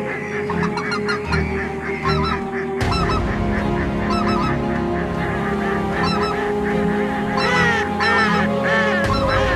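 A flock of greylag geese honking, with many overlapping calls in quick succession that grow louder and fuller about three quarters of the way through.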